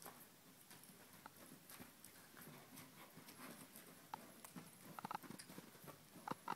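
Faint, muffled hoofbeats of a horse cantering on soft dirt arena footing, with a few sharper short clicks in the last couple of seconds.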